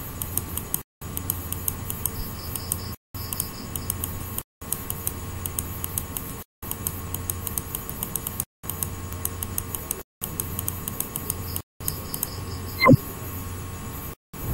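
Small irregular clicking of a computer mouse and its scroll wheel over a steady low electrical hum, with the sound cutting out briefly every couple of seconds. One sharper click near the end.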